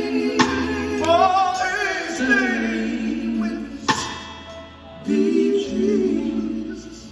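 Live gospel quartet music: voices singing and holding chords, with sharp percussive hits about a second in and again about four seconds in.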